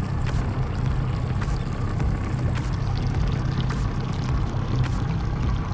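75 hp Yamaha outboard motor idling steadily, a constant low hum.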